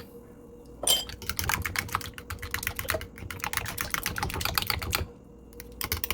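A fork whisking a liquid egg, sugar and milk mixture in a bowl, clicking against the bowl's side in a fast run of several clicks a second. There is one knock about a second in, and a brief pause about five seconds in before the clicking starts again.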